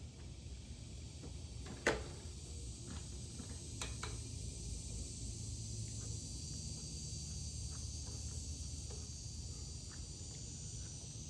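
Scattered clicks and taps of hand tools on a lawnmower as it is put back together, one louder knock about two seconds in and two lighter ones near four seconds, over a steady high hiss in the background.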